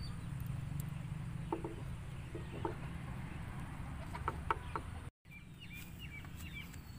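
Native chickens clucking in short calls, a few scattered through the first five seconds, over a steady low rumble. After a brief dropout, higher-pitched chirps follow.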